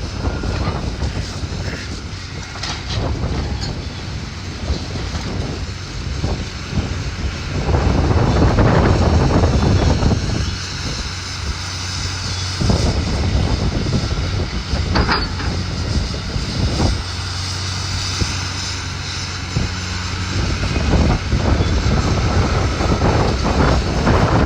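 Heavy demolition machinery with its engine running steadily, broken by knocks and crashes of debris as a building is torn down.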